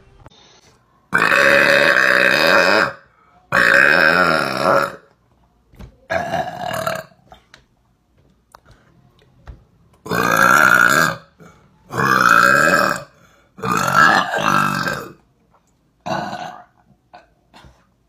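A young woman burping loudly, a run of about seven long, pitched burps, most lasting a second or more, with short quiet gaps between them.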